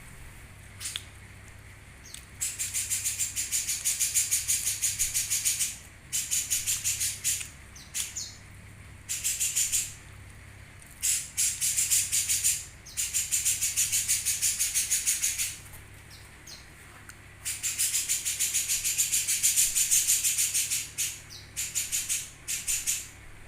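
A songbird giving repeated bouts of fast, rattling chirps, each bout a rapid even string of pulses lasting a couple of seconds, with short pauses between bouts. A faint low hum runs underneath.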